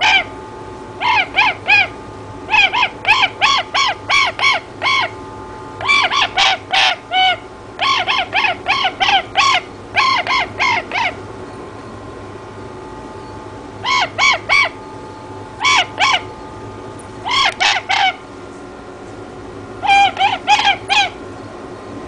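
A toucan calling in bouts of short, repeated croaking notes, several a second. There is a longer pause about halfway through, then shorter bouts resume.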